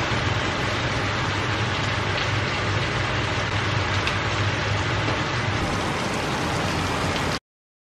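Chicken thighs sizzling in a hot frying pan, a steady hiss over a low hum; it cuts off suddenly near the end.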